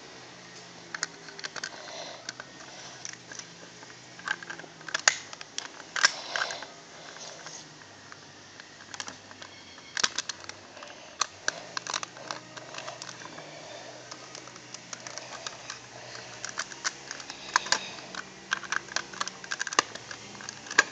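Lego bricks being handled and pressed onto a build: irregular plastic clicks and snaps throughout, a few of them louder, as the bricks are fitted into place.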